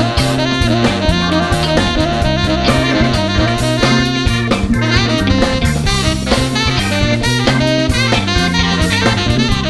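Funk band playing an instrumental groove: drum kit, electric bass and electric guitar under a horn section of saxophone and trombone.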